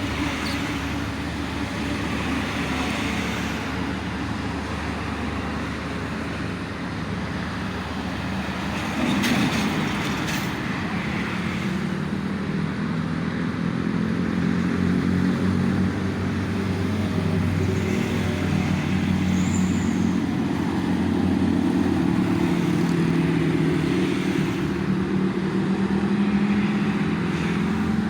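Steady road traffic: cars and trucks running past on a busy toll road. A deeper engine drone builds about a third of the way in and stays for the rest.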